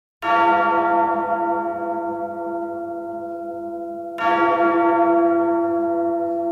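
A large bell tolled twice, about four seconds apart, each stroke ringing on and slowly dying away.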